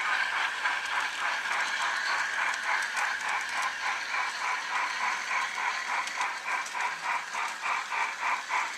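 Digital sound decoder in an OO scale Beyer Garratt model steam locomotive playing steady exhaust chuffs through its small speaker, about three beats a second.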